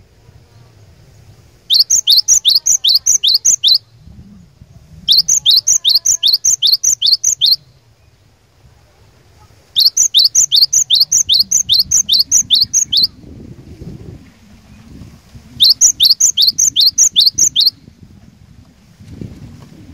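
Cinereous tit (gelatik batu) singing: bouts of the same sharp two-part note repeated fast, about four a second, each bout lasting two to three seconds with short pauses between, four bouts in all and a fifth starting at the very end.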